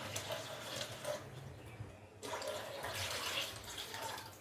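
Water poured from a glass jug into a large pot of chicken pieces, splashing steadily, with a brief break about two seconds in.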